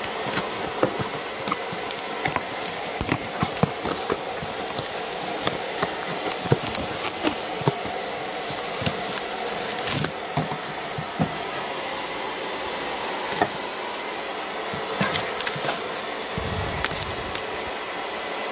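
Crinkling and crackling of bubble wrap, cardboard and paper being handled while packing is pulled out of a box, in many short irregular clicks. A steady whooshing background noise runs underneath.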